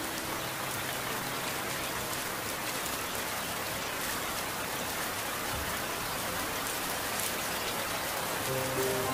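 Steady heavy rain: an even hiss of rainfall with scattered drop ticks. The song's music comes back in softly near the end.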